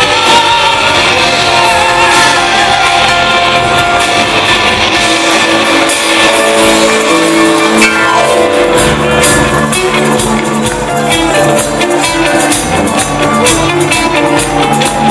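Live Christian band playing loudly, with singers, horns and guitar over drums; the bass comes in heavier about nine seconds in.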